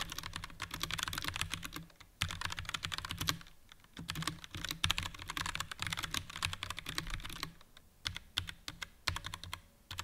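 Typing on a Redragon K556-RK mechanical keyboard with generic brown switches and round typewriter-style keycaps: rapid runs of key clacks with a few short pauses.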